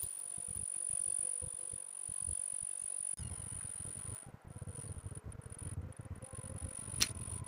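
A steady, high-pitched insect trill holds on one note throughout. From about three seconds in, a low rumble on the microphone joins it.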